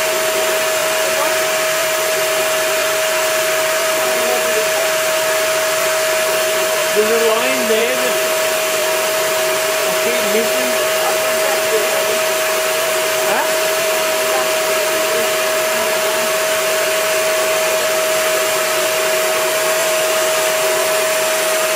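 Vacuum cleaner running steadily, its motor giving a constant high whine over a loud rush of air as the hose nozzle sucks at the hair on his head.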